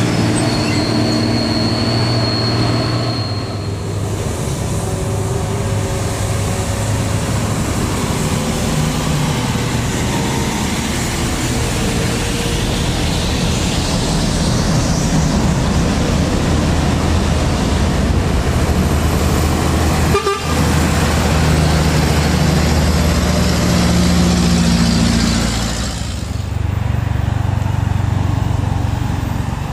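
Heavy diesel trucks climbing a steep hill one after another, engines running under load, with horn toots among them.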